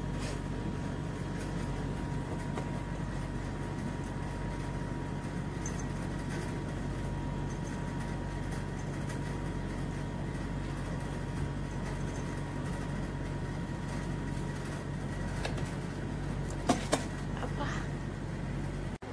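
A steady low mechanical hum with a thin steady tone above it, and two sharp clicks close together near the end.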